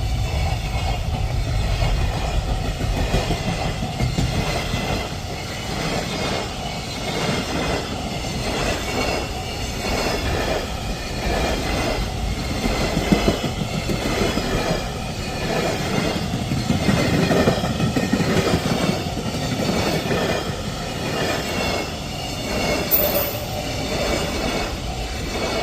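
A long train passing close by on the Tokaido Line at speed: a steady rumble of steel wheels on rail with a regular clickety-clack about once a second.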